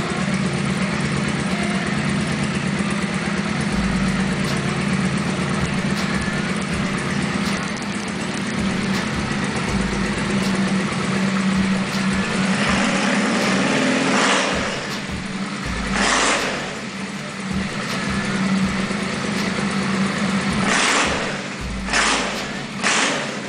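Honda Shadow 600 V-twin running through an aftermarket Roncar exhaust with a baffle fitted. It idles steadily, then is revved in several short throttle blips over the second half.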